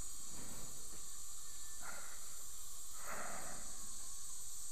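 Steady hiss, with two soft, breathy swells of noise about two and three seconds in.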